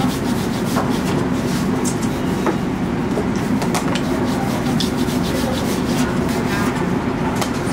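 Steady low background rumble, with scattered light taps and rubbing from hands pressing and rolling dumpling wrappers on a floured steel counter.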